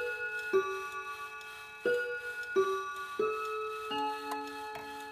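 Linden wall clock chiming the five o'clock hour: a tune of struck, ringing notes at several different pitches, about one every two-thirds of a second, each note ringing on under the next, with a short pause about a second in.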